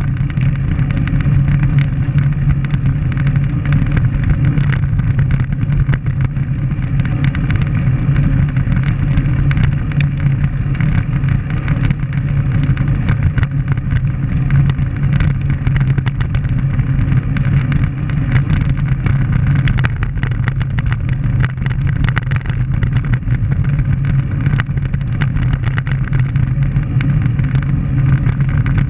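Steady rush of wind over the microphone of a camera riding on a road bike at speed, with the tyres rolling on rough asphalt; a constant low rumble with no change throughout.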